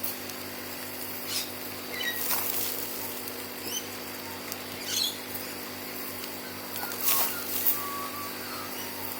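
Soil in a large potato container being dug through and scooped out, making irregular short scratchy rustles and scrapes.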